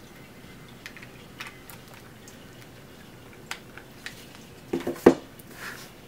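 Small ceramic pet drinking fountain running at its normal flow, water trickling from the shell spout into the lid. Scattered light clicks, and a short cluster of louder knocks about five seconds in.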